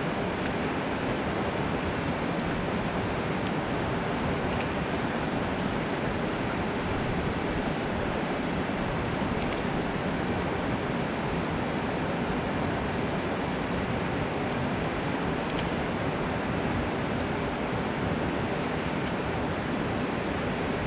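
Steady rush of water pouring down a concrete dam spillway and churning in the fast river below it.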